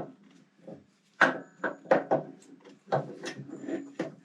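A series of knocks, clunks and scrapes from metal parts and tools being handled on a workbench.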